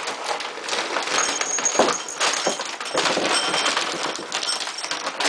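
Dogs at feeding time: a busy run of small clicks and rattles from food and bowls, with a few short, thin, high whines from a dog.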